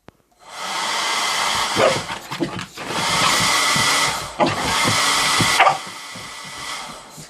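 Hair dryer blowing steadily, switched on about half a second in, with its level falling off near the end. A boxer dog barks at it several times.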